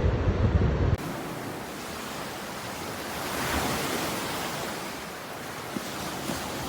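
Wind buffeting the microphone with a heavy low rumble, cutting off abruptly about a second in; then the even hiss of ocean surf breaking, swelling once midway.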